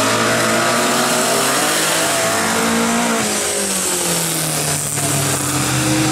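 Several bilcross race cars' engines revving together, their pitches rising and falling as the cars race.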